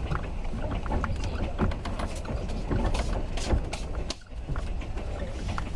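Overnight sleeper train running: a steady low rumble inside the carriage with frequent rattles and clacks, dipping briefly about four seconds in.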